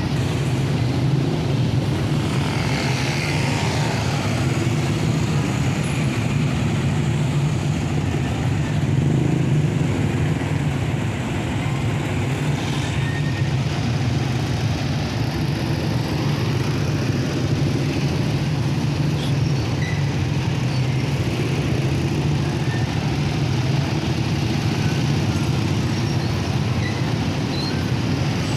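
A vehicle engine running steadily with road and traffic noise, with a constant low hum throughout.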